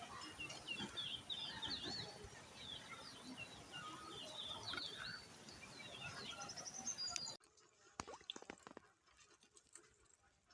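Small birds chirping in quick repeated phrases over a steady outdoor hiss. About seven seconds in, the background cuts off abruptly, leaving a few soft knocks and then quiet.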